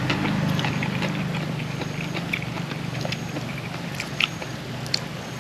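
Close-up eating sounds: chewing and lip smacking, with scattered short wet clicks, over a low engine hum that fades away.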